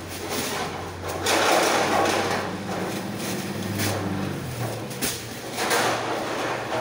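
Warehouse loading noise: an engine hums low and steady under sharp knocks and clatter, with two longer stretches of rough scraping noise, about a second in and near the end.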